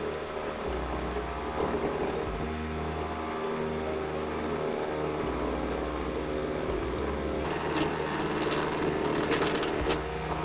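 A motor running steadily with a constant hum. From about two-thirds of the way in come irregular sharp clicks and scrapes, as of metal or wood being worked.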